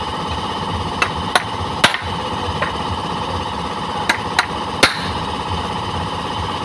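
Claw hammer tapping a metal punch on a motorcycle-engine one-way starter clutch: about seven sharp metal-on-metal blows, four in the first few seconds and three more close together near the middle, over a steady background hum.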